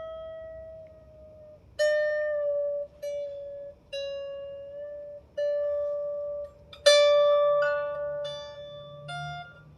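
A string on a 16-string lyre harp plucked over and over during a rough tuning, each note ringing for about a second before it stops, its pitch shifting slightly from pluck to pluck. About seven seconds in comes a louder pluck, followed by a few higher strings.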